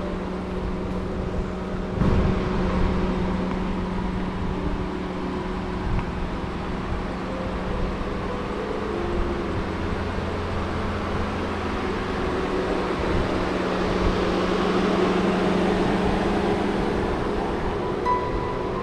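A vehicle's steady engine hum and road noise, the noise swelling a little past the middle.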